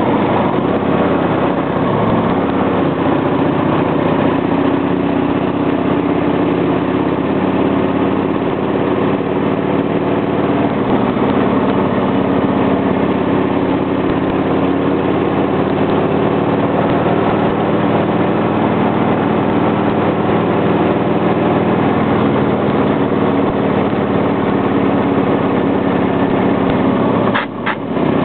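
Motorcycle engine running at steady road speed, its note rising and falling slightly with the throttle through the curves, with a short dip in level and a couple of clicks near the end.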